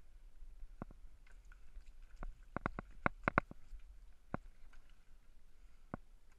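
A run of sharp, irregular clicks and knocks, about a dozen, bunched together in the middle, over a faint low rumble.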